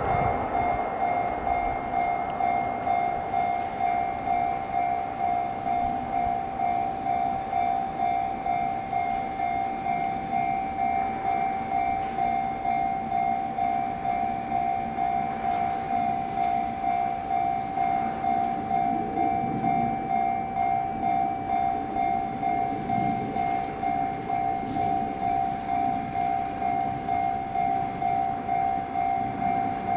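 JR-standard electronic level-crossing warning bell ringing continuously, a slightly high-pitched tone struck about twice a second: the crossing is closed with trains approaching.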